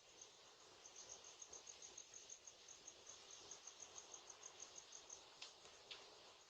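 Faint cricket chirping: a steady run of short, high chirps, about six a second, over a low hiss. It stops a little past the middle, and two faint clicks follow near the end.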